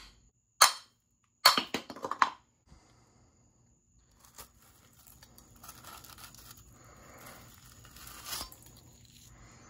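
Hammer blows on steel, knocking the mounting plate off an old rusted leaf spring. There is one sharp strike just under a second in, then a quick cluster of metallic knocks at about one and a half to two seconds. After that only faint scraping and rustling.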